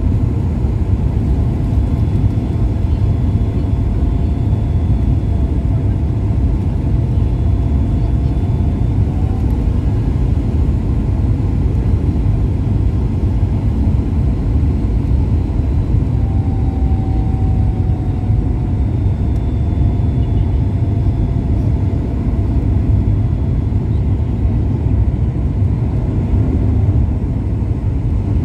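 Steady low rumble inside the cabin of a Boeing 737 airliner on its descent to land: jet engine and airflow noise heard from a window seat beside the engine, with a faint whine drifting in pitch now and then.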